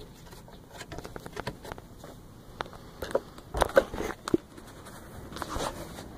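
Scattered small clicks and taps of hardware being handled, with a few louder knocks about three and a half to four and a half seconds in.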